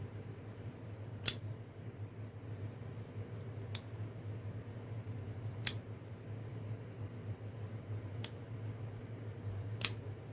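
Old Timer Ironwood assisted-opening folding knife, its blade snapping with five sharp metallic clicks about two seconds apart as it is worked open and shut, its stiff pivot screw just loosened.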